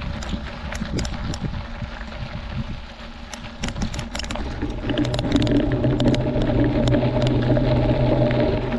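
Mountain bike rolling over a rocky gravel road: tyres crunching on loose stones, with many sharp clicks and rattles from stones and the bike. About halfway through, a louder steady buzzing hum joins in.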